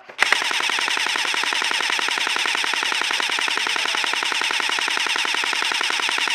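Airsoft electric rifle firing one long full-auto burst: a fast, even stream of shots with no break.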